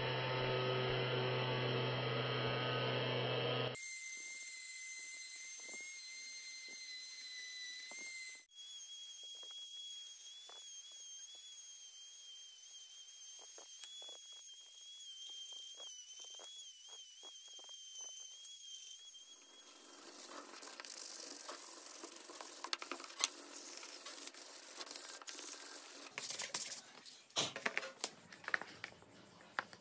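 Handheld rotary tool with a carbide burr running at high speed, a steady high whine that wavers as the burr grinds into the wooden handle. Later there is a rougher grinding hiss, then scattered light knocks of wood on the table near the end.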